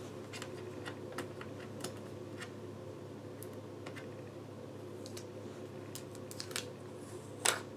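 Scattered computer keyboard keystrokes and clicks at an unhurried pace, over a steady low hum; one louder click near the end.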